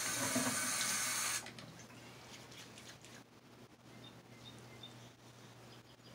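A water tap runs for about a second and a half, then is shut off, followed by faint rubbing of fingers massaging foaming cleanser over the face.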